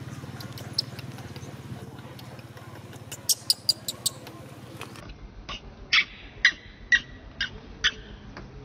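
Baby macaque squeaking: short, sharp, high-pitched squeaks, a quick cluster of four or five about three seconds in, then a run of about seven at roughly two a second in the second half. A low steady hum lies under the first half.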